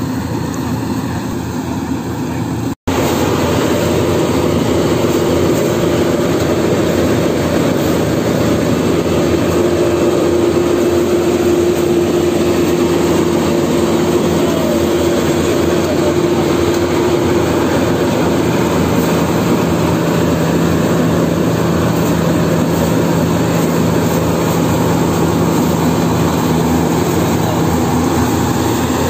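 Yanmar AW70GV combine harvester running under load while cutting and threshing rice: its diesel engine and threshing machinery make a loud, even drone with a steady hum. The sound drops out for an instant about three seconds in.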